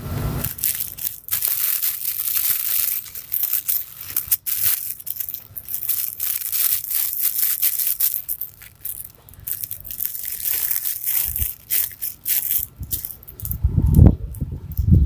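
Crinkly cloth baby book being squeezed and handled, its crinkle layer crackling and rustling in irregular bursts. Near the end come duller thumps as the book is opened and pressed flat.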